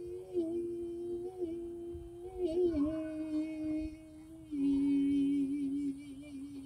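A solo voice humming long held notes of a gospel melody, unaccompanied, with small slides between notes and a step down in pitch. A louder, lower note starts about four and a half seconds in and fades near the end.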